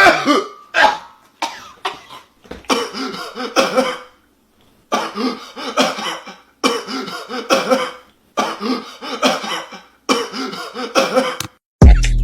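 A person coughing hard in repeated bouts, each about a second and a half long, with short pauses between them. Hip hop music cuts in near the end.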